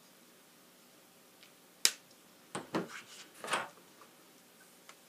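A single sharp plastic click about two seconds in, then a few duller knocks and taps: a Distress marker being uncapped and handled, with the cap and pieces set down on the craft table.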